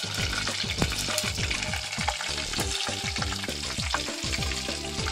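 Insects deep-frying in a small pot of hot oil: a steady, dense crackle and sizzle of bubbling oil with many small pops.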